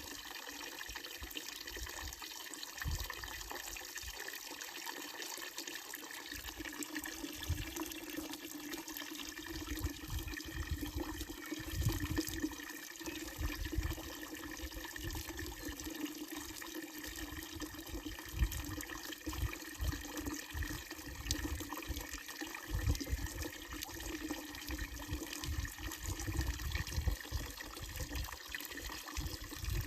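Water pouring steadily from the wooden spout of a village fountain and splashing into its trough, with intermittent low rumbles.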